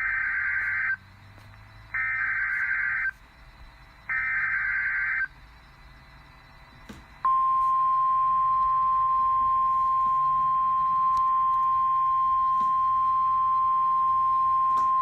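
Emergency Alert System SAME header: three buzzy, warbling digital data bursts of about a second each, two seconds apart. About seven seconds in, the single-pitch 1050 Hz NOAA Weather Radio warning alarm tone starts and holds steady, marking the opening of a new tornado warning.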